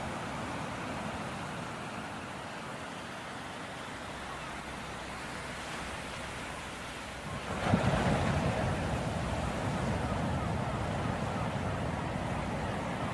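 Ocean surf washing steadily, with a wave breaking a little over halfway through, after which the wash stays louder.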